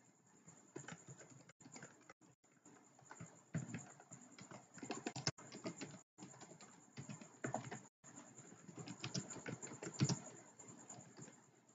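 Faint computer keyboard typing: quick, irregular runs of keystrokes with short pauses between them.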